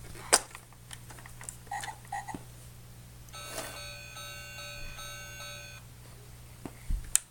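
Electronic toy train's sound chip playing a short beeping electronic tune for a couple of seconds in the middle, with a few sharp plastic clicks before and after.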